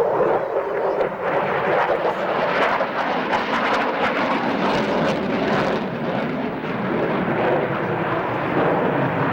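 Jet aircraft engine noise: a steady rushing sound with no clear pitch, holding at an even level.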